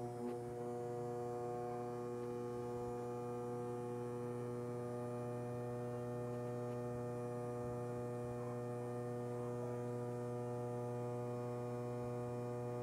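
Small 12-volt brushed DC motor running with nothing on its shaft, a steady even hum drawing about a third of an amp from a 12 V battery.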